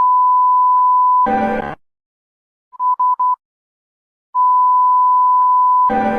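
Electronic emergency alert signal in a repeating pattern: a steady, high beep about a second and a half long that ends in a short harsh buzz, then three quick beeps at the same pitch, then the long beep and buzz again.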